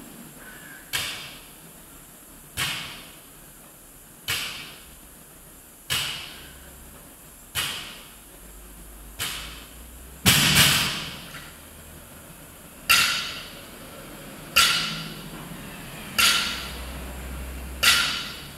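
Loaded barbells with rubber bumper plates being deadlifted, the plates striking the rubber gym floor at the bottom of each rep: a sharp thud with a short clank about every second and a half, the loudest about ten seconds in.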